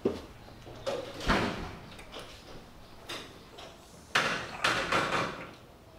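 Footsteps, then a glass door being opened. A noisy sound comes about a second in, and the loudest ones come about four to five seconds in.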